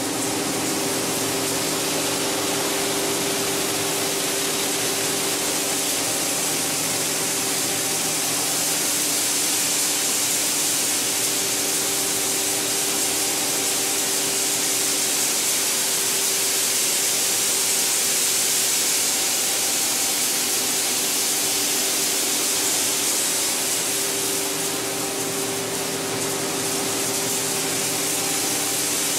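PET bottle washing line running: a steady hiss of spraying water and churning flakes over a constant machine hum.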